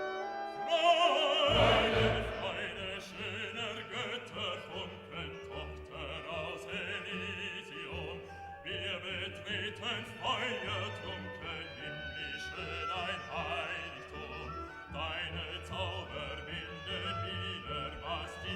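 Background music in a classical, operatic style.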